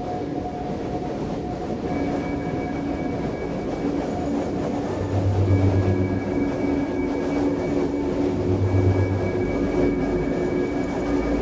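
Electronic soundscape score: a dense, noisy drone with several steady held tones over it, and a deep bass swell that comes in twice in the second half.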